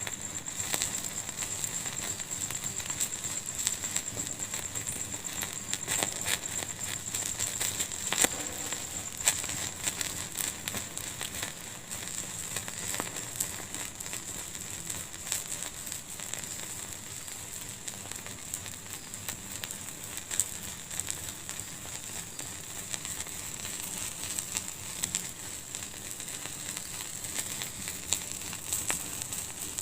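Wood fire burning in a fireplace: a steady hiss with irregular crackles and pops, a few sharper snaps standing out.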